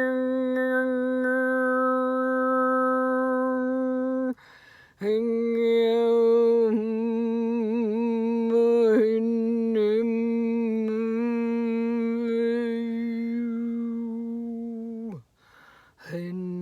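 A woman's voice humming long held tones in vocal toning, with a short breath between notes. A steady note ends about four seconds in, then a note of about ten seconds wavers in pitch in the middle and slides downward at its end. A new, lower note begins near the end.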